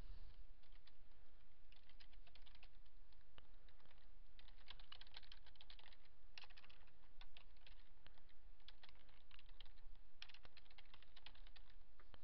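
Typing on a computer keyboard, in several short runs of key clicks with brief pauses between them.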